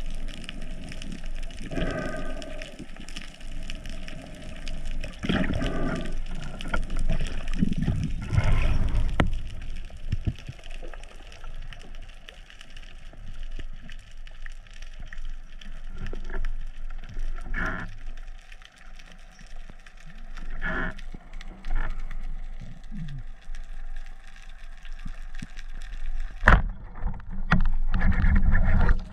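Underwater sound picked up through an action camera's housing: shifting water noise and scattered small clicks. Near the end comes one sharp crack, the speargun being fired, followed by a louder rush of noise.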